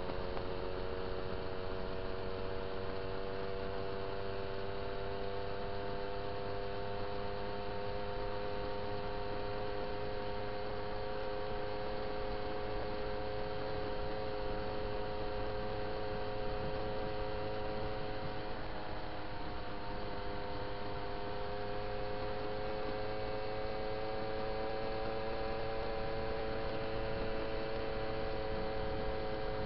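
Small two-stroke moped engine running steadily at cruising speed, a constant drone whose pitch sags slightly midway and rises again later.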